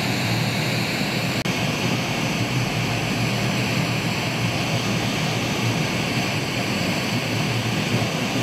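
Hot air rework station blowing a steady stream of hot air through its nozzle: a constant rushing hiss over a low hum. It is reflowing solder to seat a replacement headphone-amplifier IC on a TV main board.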